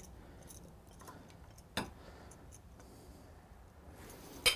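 Quiet pouring of custard filling from a plastic food processor bowl into a glass measuring cup, with a single click about two seconds in and a louder double click near the end as the bowl touches the cup.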